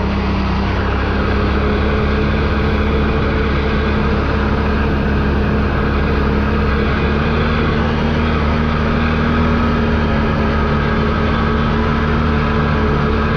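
ATV engine running at a steady pace, heard from on board the machine, with a constant drone over a wash of trail and wind noise.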